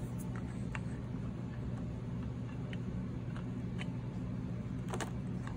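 Light clicks and paper handling as punched planner pages are fitted into a planner's binding, a few sparse ticks with a sharper one near the end, over a steady low hum.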